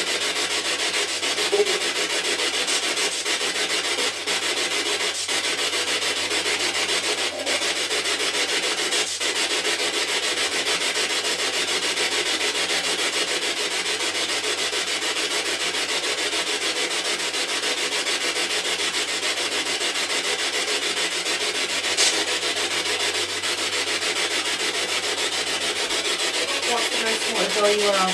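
A spirit box radio scanning through stations: a steady, rough hiss of radio static, with a few faint clicks and a brief warbling fragment near the end.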